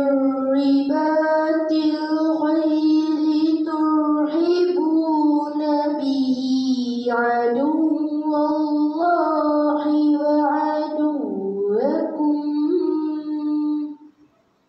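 A girl's voice reciting the Quran in tarannum, the melodic chanted style: one long, ornamented phrase with sliding pitch turns and a deep dip and rise about eleven seconds in, ending near the end.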